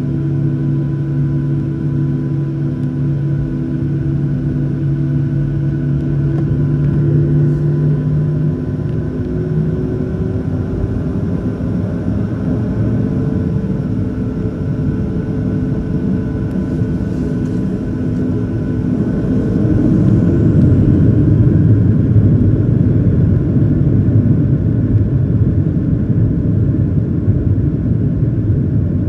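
Boeing 737-800's CFM56-7B turbofan engines heard from inside the cabin: a steady whine and hum at taxi power, then a tone rising in pitch and, about two-thirds of the way through, a louder, denser rumble as the engines spool up toward takeoff thrust.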